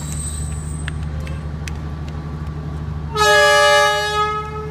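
Diesel train horn sounding once for about a second and a half, loud and steady, starting about three seconds in, over the steady low rumble of the train running, heard from aboard.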